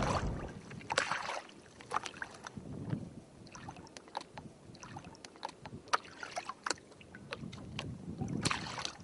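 Sea water splashing and lapping, with many small sharp splashes and drips and two larger splashes, about a second in and near the end.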